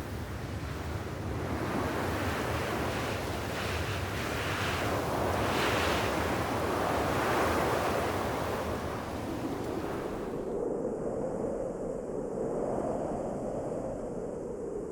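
Wind blowing in gusts, swelling to its strongest about halfway through. About two-thirds in it changes suddenly to a softer, lower, more hollow-sounding wind.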